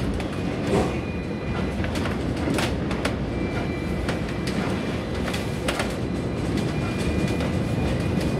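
Hong Kong double-decker tram running on its rails, heard from the upper deck: a steady low rumble broken by irregular clicks and clacks from the wheels and track. A faint thin high squeal comes and goes as the tram takes the curve.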